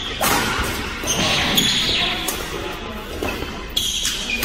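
Badminton jump smash: a sharp crack of the racket striking the shuttlecock just after the start, followed by a couple more knocks and short high squeaks of shoes on the court floor.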